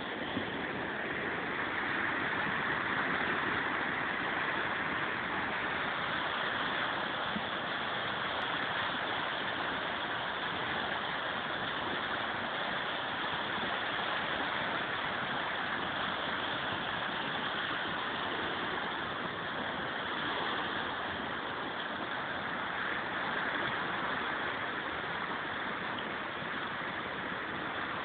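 Swollen river in flood rushing and churning over whitewater: a steady, even rush of water that holds level throughout.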